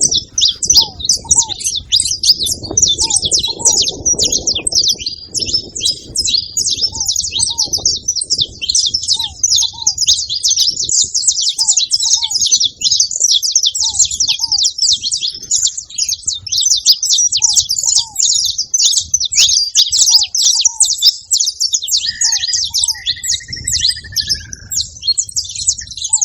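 A flock of saffron finches chirping together in a dense, unbroken chatter of high calls. A lower short call, often in pairs, repeats every second or two beneath it.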